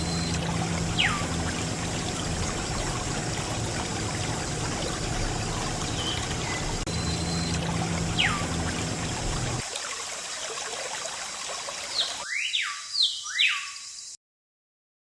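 Water running and trickling, with a low rumble under it that stops about two-thirds of the way through. Quick falling whistle-like sweeps cut in about a second in, again near the middle, and four in a row near the end, then the sound cuts off abruptly.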